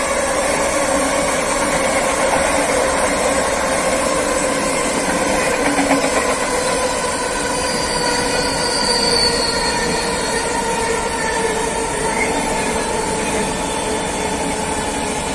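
Freight train of covered hopper wagons rolling past close by: a steady loud clatter and rumble of wheels on rail, with a squealing ring of several tones that slides slowly lower.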